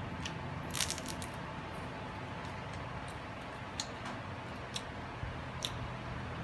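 Crusty bánh mì baguette crackling as it is bitten and chewed: a cluster of crunches about a second in, then a few single crackles while chewing.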